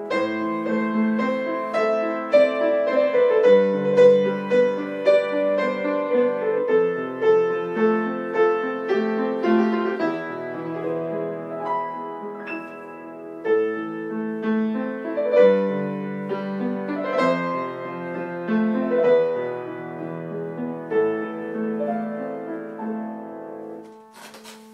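Yamaha grand piano played solo, a melody over chords, getting softer and dying away near the end. A short noise follows just before the end.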